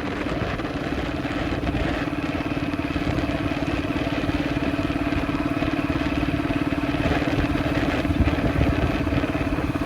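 Motorcycle engine running at a steady speed, an even, unchanging engine note.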